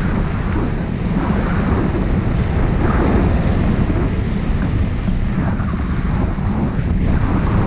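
Wind rushing over the microphone of a wing-mounted camera on a hang glider in flight: loud, steady buffeting that is heaviest in the low end.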